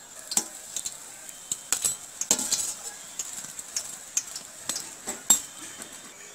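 Steel slotted spoon clinking and scraping against a steel frying pan and a ceramic plate as fried raw-banana koftas are lifted out of the oil and set down, in irregular clicks, the loudest about five seconds in. Hot oil sizzles steadily underneath.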